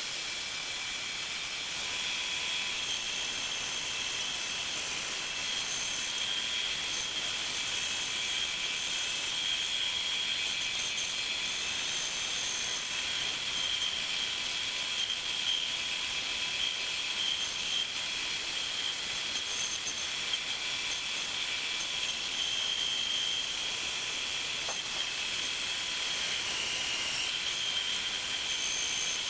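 A bandsaw running and its blade cutting into round wooden stock that an old electric drill spins against it, turning a duplicate of a template on a bandsaw-lathe rig. The machines give a steady high-pitched whine over a hiss.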